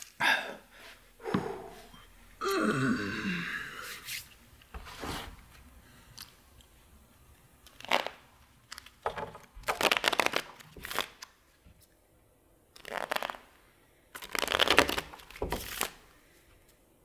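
Playing cards being shuffled and handled, in short bursts of crisp riffling and clicking, the densest about ten seconds in and again near the end. A brief tone falling in pitch comes about two and a half seconds in.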